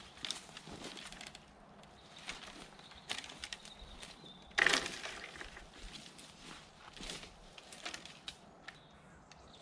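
Dry twigs and brush crackling and snapping underfoot and in hand, in scattered small cracks, with one louder crunch of breaking branches about five seconds in.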